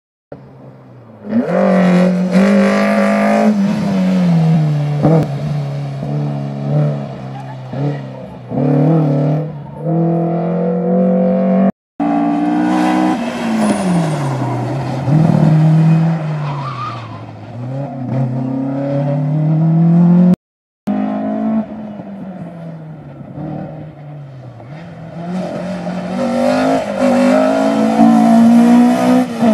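Race-prepared cars' engines revved hard through a cone slalom, rising and falling in pitch as they accelerate, lift and shift. The sound comes in three stretches, with a sudden cut at about 12 s and another at about 20 s.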